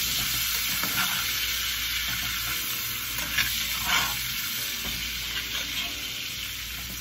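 Butter sizzling steadily in a cast iron skillet around filet mignon steaks as they are butter-basted with a metal spoon, with a few short clinks of the spoon against the pan.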